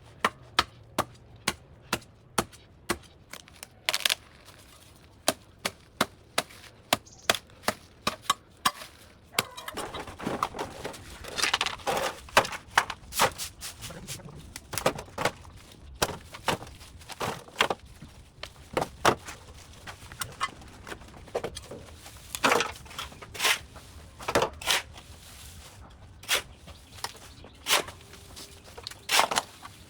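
Repeated sharp chopping strikes of a blade cutting into overgrown vines and brush, about two a second at first, then more irregular with rustling of cut vegetation from about ten seconds in.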